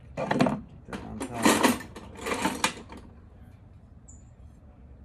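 Metal hand tools being handled and rattled together: three bursts of scraping clatter in the first three seconds, then quieter.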